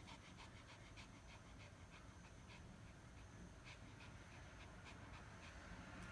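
A Pomeranian panting faintly in quick, short breaths.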